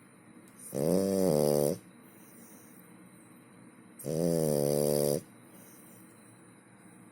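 French bulldog snoring in its sleep: two snores, each about a second long and roughly three seconds apart.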